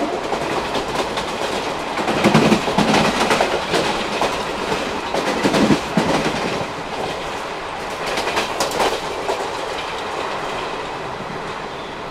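Wheels of an ICF passenger coach clattering over the rails at speed: a steady running rumble with louder spells of rattling clicks about two, five and eight seconds in.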